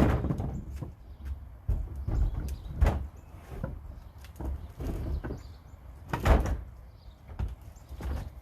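Irregular knocks and thumps, roughly half a dozen, over low handling noise; the loudest come near the start and about six seconds in.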